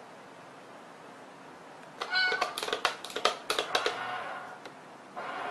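A cat meows briefly about two seconds in, followed by a quick run of sharp clicks and taps for about two seconds as the cat swats at a small cardboard box toy with a flip-up lid.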